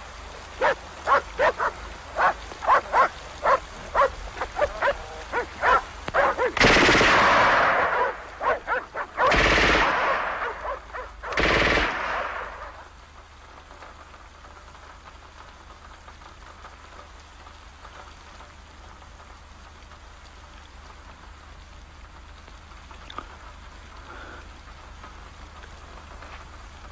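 Dogs barking rapidly, then three loud bursts of machine-gun fire, the first about two seconds long, the others shorter. After that only a steady hiss of rain.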